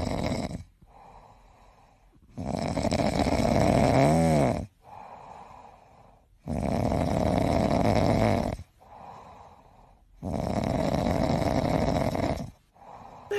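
Grey cat snoring in deep sleep: loud snores about every four seconds, each lasting about two seconds, with quieter breaths between.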